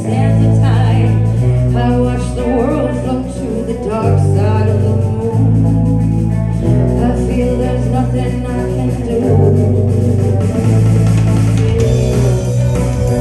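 Live band playing a song: a singer over guitar, with a bass line that steps from note to note.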